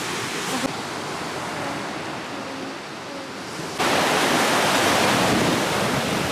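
Sea waves washing on a beach, with wind buffeting the microphone; the noise jumps suddenly louder about four seconds in.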